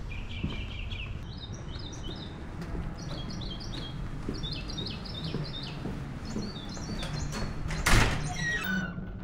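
Small birds chirping in short, repeated high phrases, with one loud thunk about eight seconds in as a glass entrance door is pulled open.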